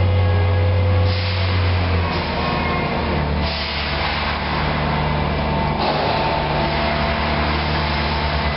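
Bendi articulated forklift running as it drives up a warehouse aisle with a raised load, a steady low hum with a hiss over it.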